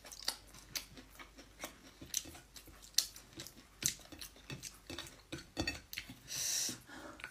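Fingers picking and mixing food on a plate while eating by hand, giving scattered small clicks and taps against the plate. A short hiss comes about six and a half seconds in.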